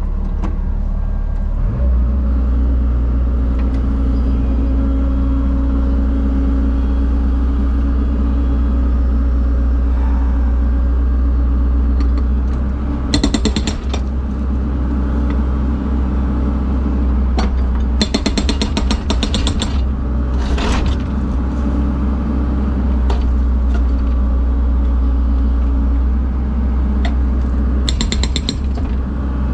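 An engine running steadily, with three short bursts of rapid hammering: old concrete being broken up with a breaker.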